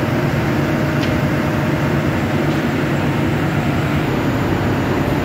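Loud, steady drone of heavy machinery running, with a low hum holding a constant pitch throughout.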